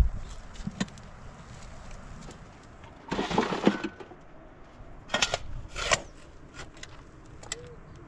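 Steel shovel digging into dry, stony soil: a knock at the start and another about a second in, then a longer gritty scrape of the blade through dirt and gravel, followed by two short scrapes.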